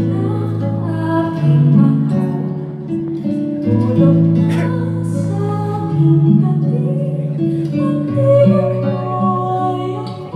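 Slow instrumental intro of a ballad's backing track, led by acoustic guitar with low notes held and changing every second or two, played over a PA system.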